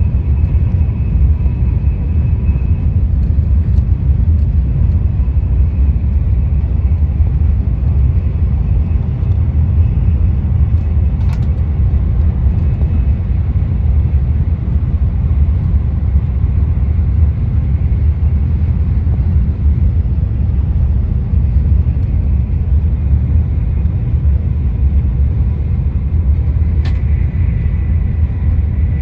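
Steady low rumble of a KTX high-speed train running at speed, heard from inside the passenger cabin, with a faint high whine over it. Two brief clicks, about eleven seconds in and near the end.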